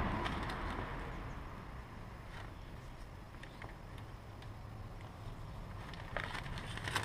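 Quiet handling at a motorcycle's gear-oil drain: a few light clicks and crinkles of the plastic catch bag over a low steady hum, with a soft hiss that fades out in the first second.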